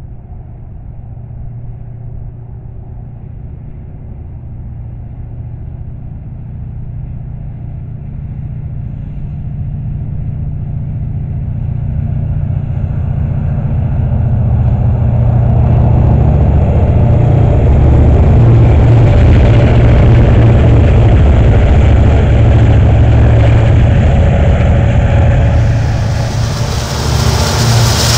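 Diesel-electric locomotives at the head of a BNSF freight train, their engines rumbling and growing steadily louder as the train approaches. A sudden rush of wheel and rail noise comes in near the end as the lead locomotive comes alongside.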